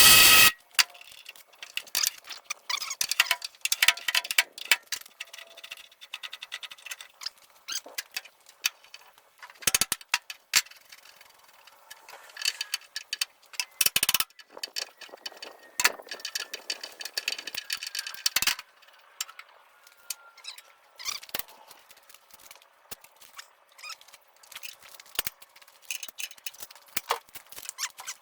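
Hand tools working on metal fittings: irregular ratchet clicking and metal clinks and rattles while a U-bolt on a hose bracket is loosened.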